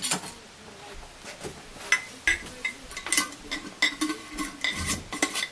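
Glass Mason jar being screwed onto its metal lid: a quick run of sharp glass-on-metal clinks and scrapes, several with a brief ring, thickest from about two seconds in.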